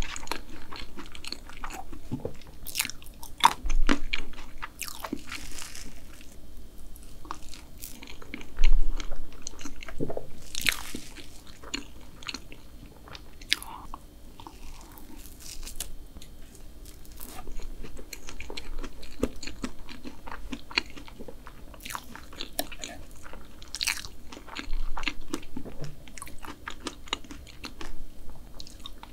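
Close-miked eating of soft fresh-cream cake: wet chewing and lip smacks with irregular sharp clicks, the loudest about 4 and 9 seconds in.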